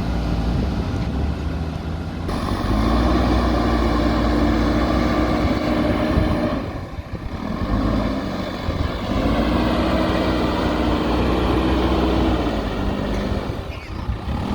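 JCB backhoe loader's diesel engine running, revving up twice and holding the higher revs for a few seconds each time before dropping back.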